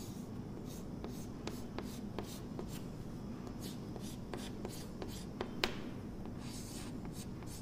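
Chalk on a chalkboard drawing and hatching small circles: a string of light, sharp taps and short scratchy strokes, the loudest tap about five and a half seconds in.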